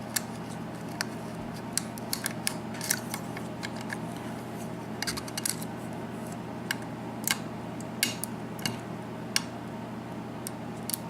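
Lock pick and tension wrench working the pin stacks of a six-pin Corbin KIK lock cylinder: a run of small, irregular metallic clicks and ticks as the pins are lifted and set.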